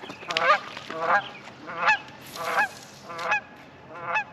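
Geese honking, a steady run of short nasal calls, about one every second or less.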